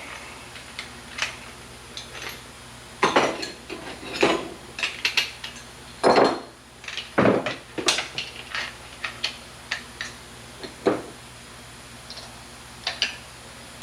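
Metal tools and small metal parts clinking and clattering irregularly during hand work, with a few louder clanks in the first half.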